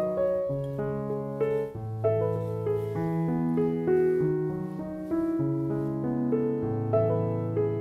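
Background piano music: a gentle melody of held notes over a slowly moving bass line.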